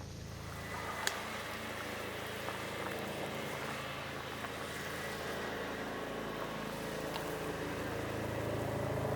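Wood fire burning in a small stove with a steady rushing noise, gradually getting louder, and a few sharp crackles.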